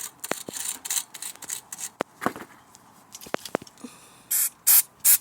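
A brush scrubbing and scratching over a brake caliper with a few clicks, then three short, loud hisses of aerosol brake-cleaner spray near the end.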